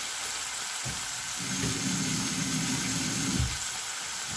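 Sliced vegetables frying in oil in a pan, a steady sizzle. A low rumble joins in about a second in and stops after about two and a half seconds.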